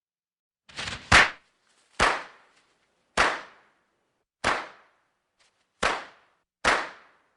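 Firecrackers going off: six sharp bangs about a second apart, each dying away quickly, with a short softer crackle just before the first.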